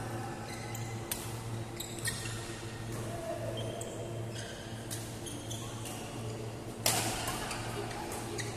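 Badminton doubles rally: sharp racket-on-shuttlecock hits and short squeaks of shoes on the court floor, over a steady low hum. The loudest hit comes about seven seconds in.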